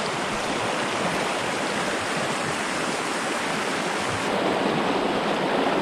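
A small rocky forest stream running over stones in shallow rapids: a steady sound of flowing, splashing water.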